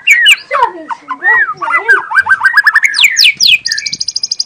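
White-rumped shama (murai batu) singing loudly: varied whistled notes sliding up and down, a quick run of short rising notes, a few steep falling sweeps, then a fast, high rattling trill near the end.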